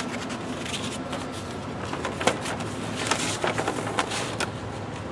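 Paper rustling and light handling clicks as the printed guide sheet is handled, over the steady running noise of the retrofitted Rheem 5-ton air-conditioning condensing unit.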